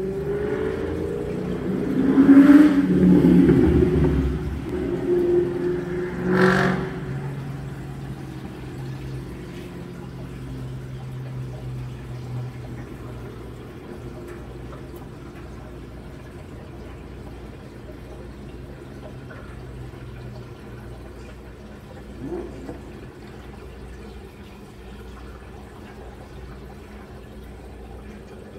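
Steady low hum with a faint watery sound, fitting an aquarium filter running. In the first seven seconds a louder sound with sliding tones, and two sharp knocks about four seconds apart, lies over it.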